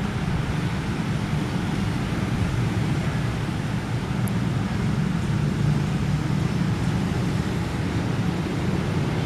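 Steady low rumble of an electric commuter train rolling slowly up to a level crossing, mixed with passing road traffic.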